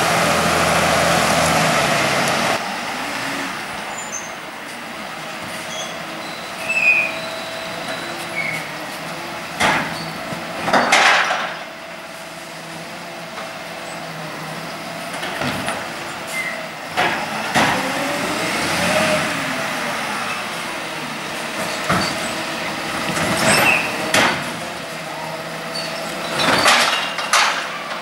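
Volvo side-loader garbage truck at work: its engine running, the hydraulic lift arm raising and tipping wheelie bins, with sharp knocks and bangs as each bin is shaken out and set back down. A louder passage of truck engine at the very start, before a cut.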